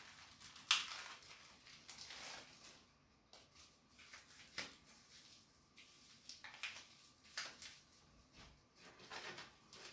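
Quiet, scattered rustling and light clicks of packaging being unwrapped by hand. A faint steady tone comes in about two-thirds of the way through.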